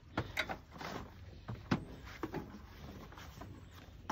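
A few light, scattered knocks and scuffs as a toddler climbs onto the floor and seat of a farm utility vehicle.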